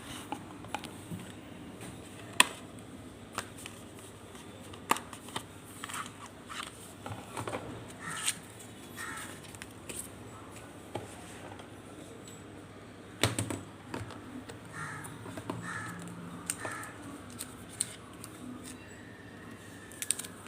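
Scattered sharp clicks and light rustling from handling a smartphone's retail box and packaging during unboxing.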